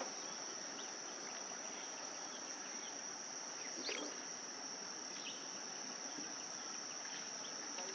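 Steady, high-pitched insect drone over faint outdoor background noise.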